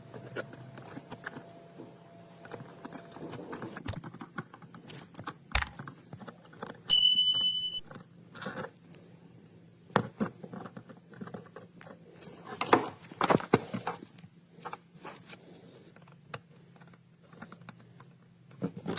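Small clicks, scrapes and knocks of hand tools working on a plastic car key fob, with one short high electronic beep about seven seconds in.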